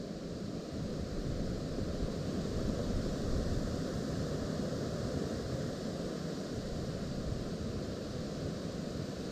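Strong gusty wind blowing across the microphone: a steady rush of low noise that swells a little about three seconds in.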